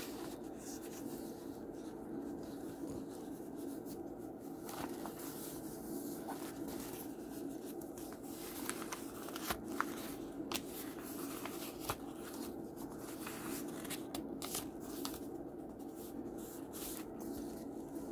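Pages of a handmade junk journal being turned and handled: soft paper rustles and scattered light taps, over a steady low hum.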